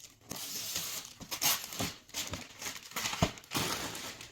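Gift wrapping rustling, crinkling and tearing in irregular bursts as a present is unwrapped.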